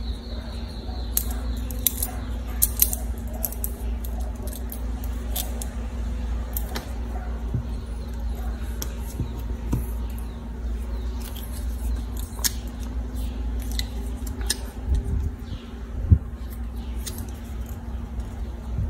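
Small scissors snipping thin plastic drinking straws: a scatter of short, sharp clicks and snips, with light taps as the cut straw pieces are handled, over a steady low hum.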